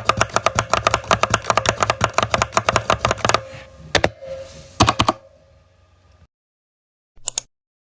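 Typing on a computer keyboard: a fast, dense run of keystrokes that stops about three and a half seconds in, then a few single key presses, a pause, and one brief clatter of keys near the end.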